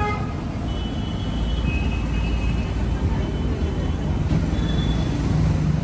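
Steady low rumble of road traffic, with a few faint high tones coming and going over it.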